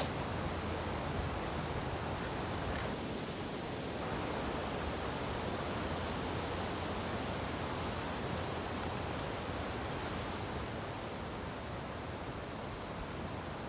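Steady, even rushing noise outdoors, with no distinct events.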